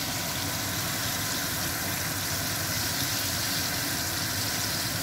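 Floured fish fillets frying in a pan of hot oil: a steady, even sizzling hiss.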